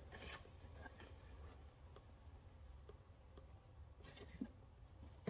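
Near silence with a few faint clicks and light rustling from cardboard firework fountain boxes being handled.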